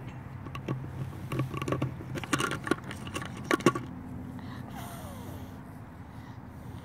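Plastic bubble wand clicking and knocking against the plastic lid of a No-Spill Big Bubble Bucket as it is pulled out of and pushed into the dipping holes. It is a quick string of clicks, loudest about two and a half and three and a half seconds in.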